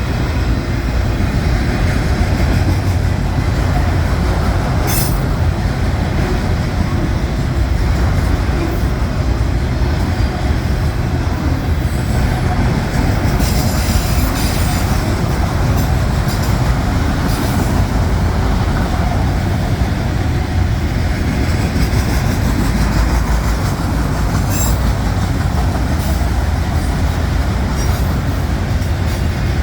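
Norfolk Southern mixed freight train's cars rolling past: a steady, loud rumble of wheels on rail, with a few brief high-pitched wheel squeals.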